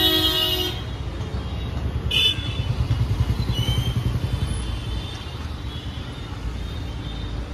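Busy street traffic. A held vehicle horn cuts off under a second in, and a short horn toot comes about two seconds in. A motor vehicle engine runs close by, loudest around three seconds in.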